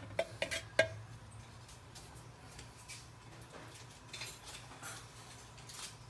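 A wooden spatula tapping and scraping against a steel wok, a few quick clicks in the first second, then it stops; a low steady hum runs underneath.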